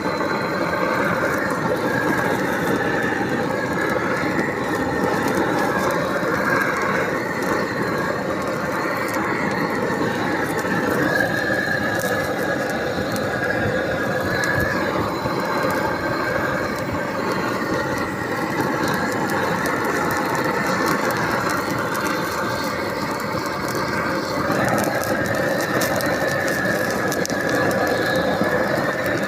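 Steady machine noise with a high squealing whine that steps to a new pitch twice.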